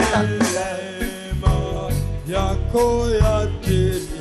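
Church worship music: a sung hymn over a band with drums and bass.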